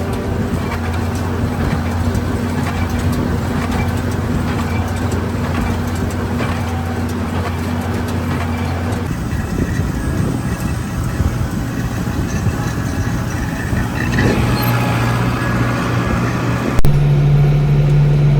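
Tractor engine running steadily; its note changes about nine seconds in and shifts abruptly near the end.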